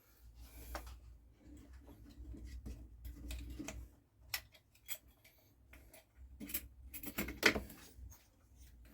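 Light clicks and taps of tools and small chainsaw parts being handled during reassembly, irregular, with a sharper click about seven and a half seconds in.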